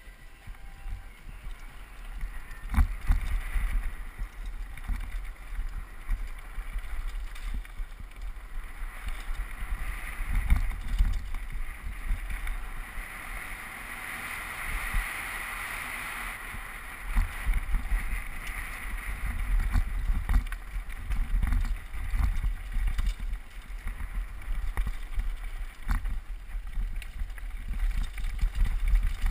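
Wind rushing over a helmet-mounted camera's microphone as a downhill mountain bike descends a rough dirt trail, with frequent knocks and rattles from the bike and tyres over bumps. The rushing swells for a few seconds around the middle.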